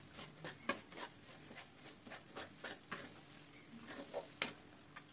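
Metal spatula stirring a thick mix of gram flour and semolina roasting in ghee in a metal kadhai, giving faint, irregular scrapes and taps against the pan, a few each second, with a couple of louder knocks.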